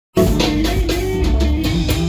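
Live band music: a drum kit, electric bass and electric guitar playing together with a steady beat. It cuts in abruptly just after the start.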